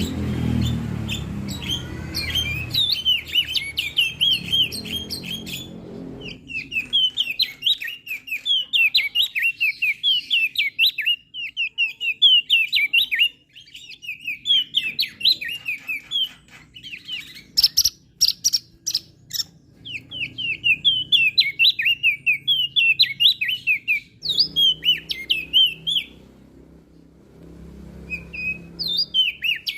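Crested white-eye (opior jambul) singing: quick runs of high, sharply sliding chirps, in phrases a second or two long with short pauses between them. A low background rumble lies under the first few seconds and again near the end, and a few sharp clicks come about halfway through.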